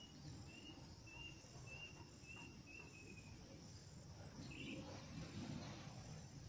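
Faint bird calling: a run of short, high whistled notes about two a second for the first three seconds, then one more call a little after four seconds, over a low steady rumble.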